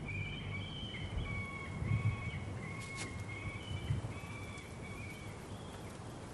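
A bird calling over and over in short, high, even-pitched notes, with a couple of soft low thumps about two and four seconds in.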